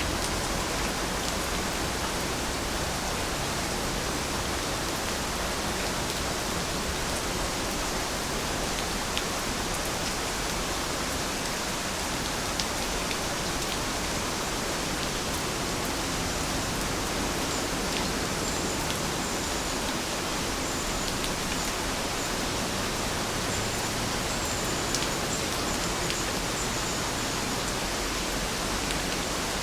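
Heavy rain falling steadily: an even hiss with scattered sharper drop ticks. Faint high chirps come in during the second half.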